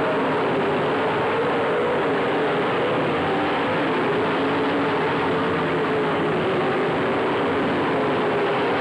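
A pack of late model race cars running laps on the oval, their engines making a steady, dense drone whose pitch wavers as the cars go round.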